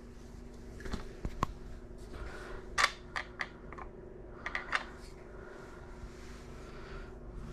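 Short hissing puffs of aerosol smoke-alarm test spray, in two clusters about three and four and a half seconds in, with a couple of handling clicks before them over a steady low hum. The smoke alarm itself is silent.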